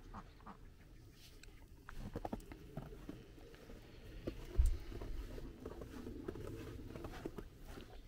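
Snow being knocked and brushed off by hand: soft patting and scraping, with one dull thump about four and a half seconds in.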